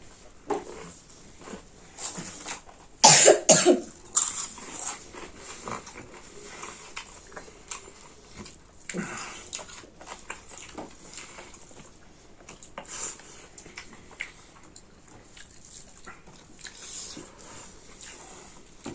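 A single loud cough about three seconds in, among scattered small clicks and mouth sounds of people eating.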